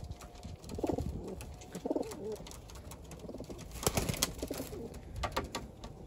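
Domestic pigeons cooing: two short low coos about one and two seconds in, with a few sharp taps later.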